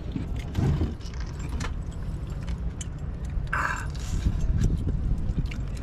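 A boat's engine runs with a steady low hum, while short clicks and crunches come from crab shells being cracked and eaten by hand.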